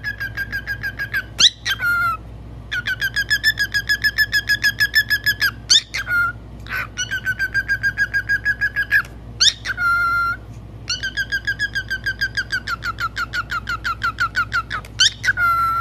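Parrot whistling long runs of rapid repeated trilled notes, about six or seven a second, broken several times by short, sharp rising whistles.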